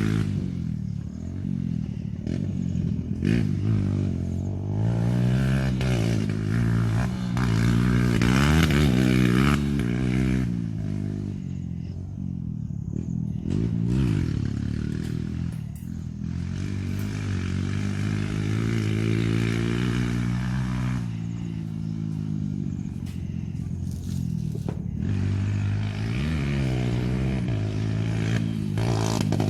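Kawasaki KLX140L dirt bike's single-cylinder four-stroke engine, ridden hard: the revs climb and drop over and over as the rider accelerates, shifts and backs off, with rattling and hiss from riding over rough ground.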